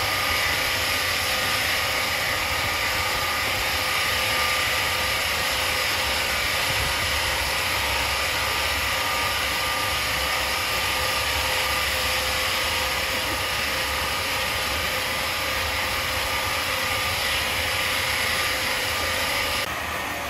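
Sawmill machinery running steadily: a continuous mechanical hiss with a few faint steady tones underneath. It drops off abruptly near the end.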